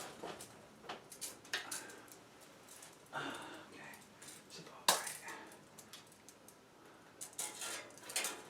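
Sheet-metal heat-duct pipe being handled and pushed together: scattered scrapes, rattles and clicks of thin metal, with one sharp knock about five seconds in.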